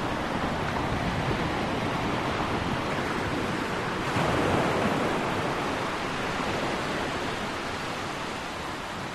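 Small waves washing up the sand at the water's edge: a steady hiss of surf that swells briefly about four seconds in.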